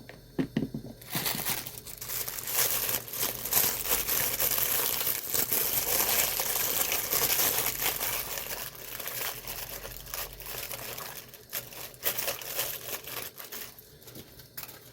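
Packaging crinkling and rustling as it is handled and opened, in a dense run of crackles from about a second in that dies away near the end.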